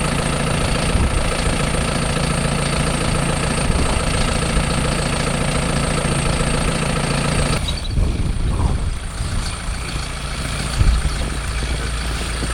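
Vehicle engine running with a steady hum; the hum drops away about two-thirds of the way through, leaving a low rumble.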